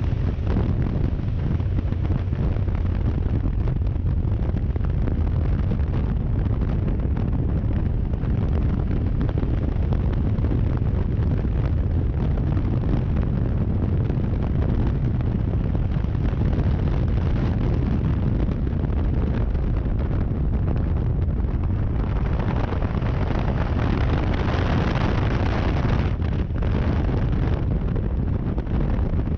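Wind buffeting the microphone on a moving motorcycle over the low rumble of a Triumph Tiger 1200's three-cylinder engine at road speed. The wind noise grows stronger for a few seconds near the end.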